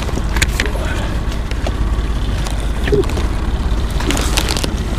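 Wind and water sloshing around a small boat at sea: a steady low rumble with scattered knocks.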